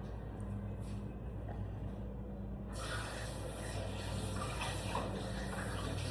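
Water running in a steady stream, starting suddenly about three seconds in, over a low steady hum.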